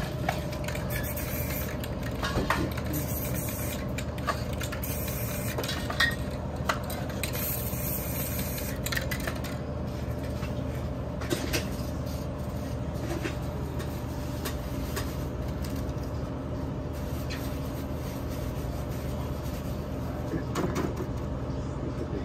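Aerosol spray-paint cans hissing in a few short bursts in the first half, with scattered clicks and knocks of cans being handled and set down, over a steady low hum.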